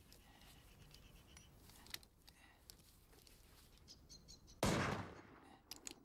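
A few faint clicks as a heavy pistol is handled, then a single sudden bang about four and a half seconds in, dying away over about half a second.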